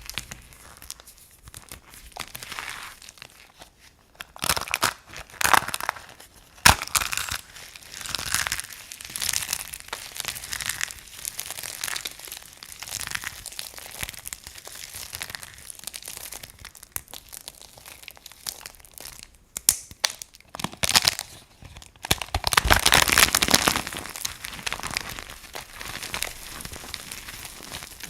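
Dry bar soap being crunched by hand: irregular crackling, crumbling crunches, with a sharp snap about seven seconds in and a louder, denser run of crunching about three-quarters of the way through.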